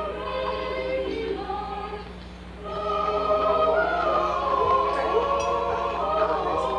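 A choir singing a Christmas carol, played from a cassette on a portable stereo (jam box), in long held notes. The singing thins out about two seconds in, then comes back fuller and louder.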